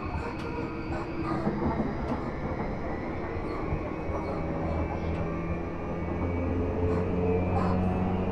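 Running sound from inside the motor car of a JR East Series E235 electric train, which has a Mitsubishi Electric SiC-MOSFET VVVF drive. It is the steady rumble of the wheels on the rail with several steady low motor and gear tones. A higher tone fades out about a second in, and the sound grows a little louder toward the end.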